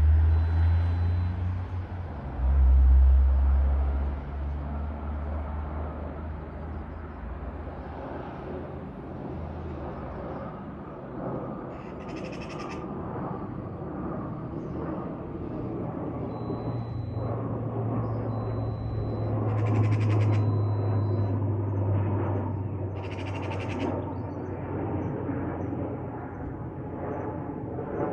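ATR 72-600 twin turboprop running, a steady broad rumble with a low drone that swells about two thirds of the way through.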